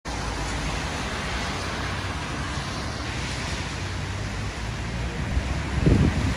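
Steady wind noise outdoors, with low gusts buffeting the microphone near the end.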